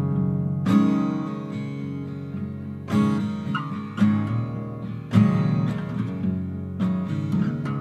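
Background music: an acoustic guitar strumming chords, a new strum every second or two.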